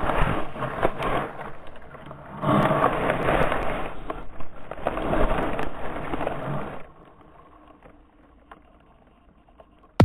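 Dirt-bike crash heard on a camera strapped to the rider: a rough rushing, rumbling noise with scattered knocks as the camera tumbles. About seven seconds in it drops suddenly to a faint quiet with a few small ticks as the rider lies still.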